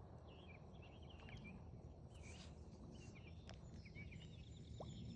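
Near silence outdoors: faint small bird chirps scattered through, ending in a quick run of repeated short notes, over a low steady background hum of ambient noise.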